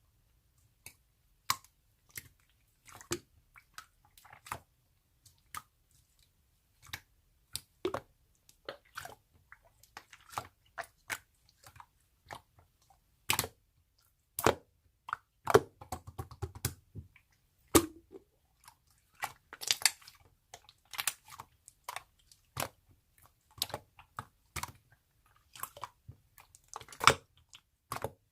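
Irregular crisp clicks and crunchy crackles close to the microphone, with a few denser crackling stretches.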